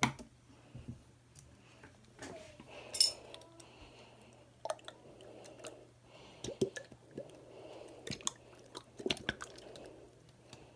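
Plastic toy bottle of gold slime being shaken upside down: scattered clicks and knocks with soft squelching as the slime works loose, and near the end it slides out.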